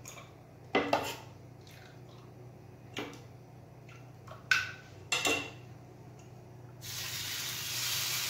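A few sharp clinks of kitchen utensils and dishes, then about seven seconds in a steady sizzle starts as jalar appam batter is piped in a spiral onto the hot dosa tawa.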